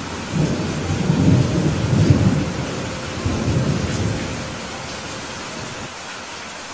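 Steady rain hiss with a low roll of thunder that swells about half a second in, peaks around two seconds, and dies away by about four and a half seconds.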